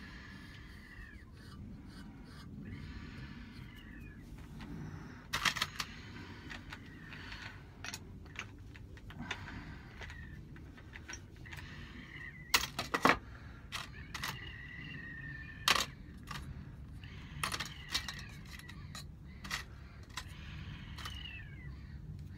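A cat meowing with thin, high, falling calls several times, over light clicks and taps from handwork at a workbench and a steady low hum.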